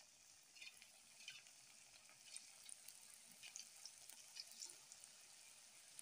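Moringa-flower pakora batter frying in hot oil: faint steady sizzling with scattered small crackles and pops.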